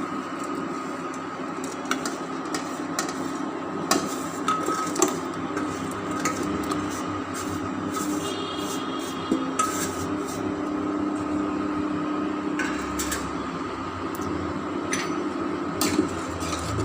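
Scattered knocks and clinks of a spoon against a cooking pot and small bowls as spices, crushed ginger and jaggery are tipped into the water, over a steady background hum.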